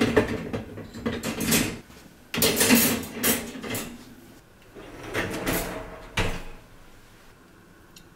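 Metal wire dishwasher racks clattering and rattling as the upper cutlery rack is set into place, in three spells of a second or two each.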